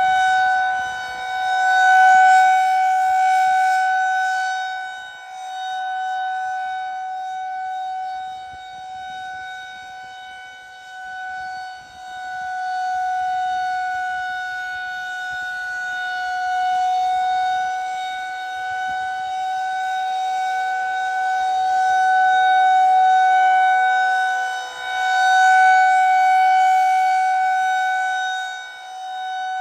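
Federal Signal 2001 outdoor warning siren sounding its steady alert tone for a routine test: one held pitch with overtones, swelling and fading every several seconds as the rotating siren head sweeps past.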